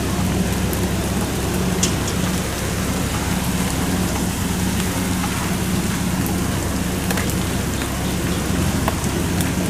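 Kubota DC-108X combine harvester running steadily as it cuts rice, a constant engine hum, with rain hissing over it and a few faint ticks.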